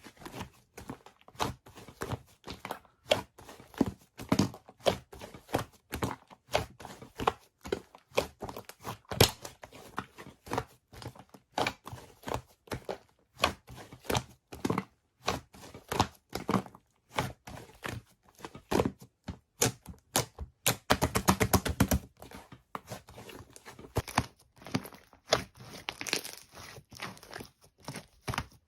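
Slime being squeezed and poked by hand, making an irregular string of sticky clicks and pops, with a quick rapid run of pops about two-thirds of the way through.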